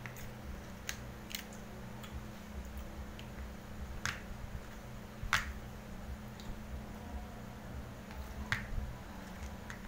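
Eating sounds: a few short, wet, sharp smacks and clicks from chewing with the mouth and pulling apart grilled skewered meat by hand, over a low steady hum.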